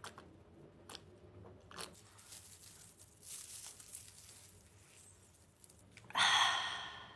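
Close-miked eating: gulps of cola, then crisp crunching bites into fried, breaded food. Near the end comes one loud, breathy 'ahh' after a swallow of the fizzy drink.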